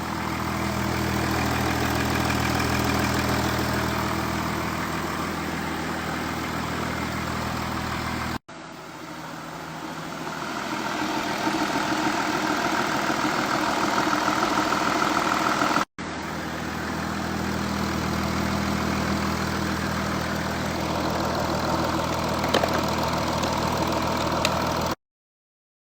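Audi A7 engine idling steadily, heard as three clips joined by abrupt cuts. It stops suddenly about a second before the end.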